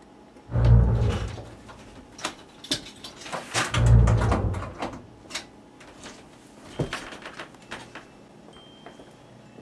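Two heavy, muffled thumps, about a second in and again about four seconds in, among scattered sharp knocks and clicks.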